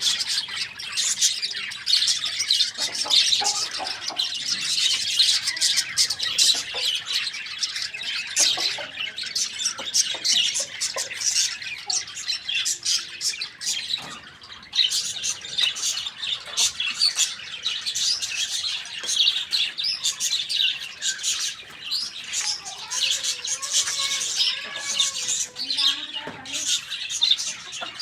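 A crowd of small birds chirping constantly, many short high calls overlapping into one busy chatter, with a few lower wavering calls near the end.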